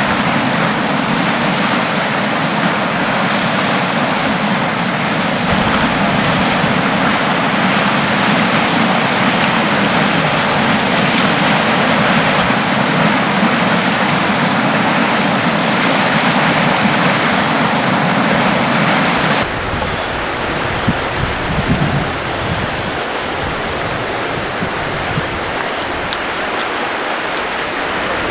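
Floodwater rushing in a loud, steady roar of water, which drops suddenly to a quieter, choppier rush about two-thirds of the way through.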